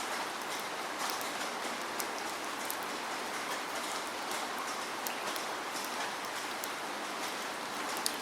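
Steady rain falling, an even hiss with many individual drops ticking sharply on a surface.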